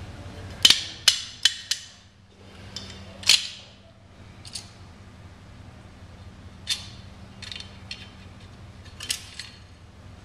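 Sharp metallic clicks and clinks of a steel snap ring and snap-ring pliers against a centrifugal pump's steel bearing housing as the ring is worked into its groove. Four quick clicks come about a second in, followed by scattered single clicks, over a faint steady hum.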